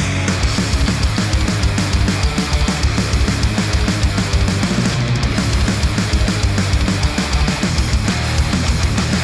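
Heavy metal-style instrumental music with a rapid, driving kick drum and dense guitars, played through studio headphones and picked up by microphones set against them.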